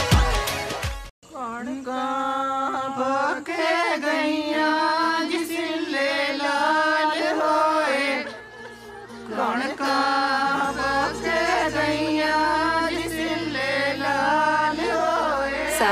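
Background music: a beat-driven dance track cuts off about a second in. A slow melody of long, wavering notes follows, and a low bass comes in about two-thirds of the way through.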